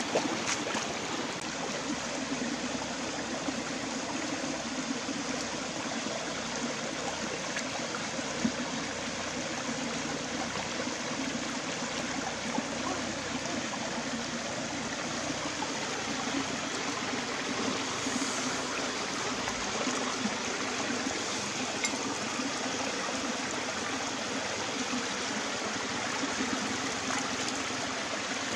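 Shallow rocky stream running over stones: a steady rush and trickle of flowing water.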